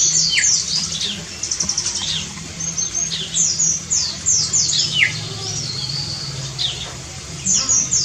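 Sumatran mesia (Leiothrix laurinae) calling: a quick, busy series of short, high, down-slurred chirps and whistles, over a faint low hum.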